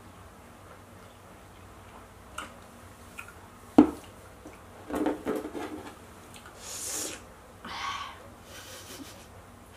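Close mouth sounds of eating mangosteen: small clicks, then soft crackly chewing and smacking sounds about five seconds in. One sharp knock just before four seconds in is the loudest sound, and breathy exhales follow near the end.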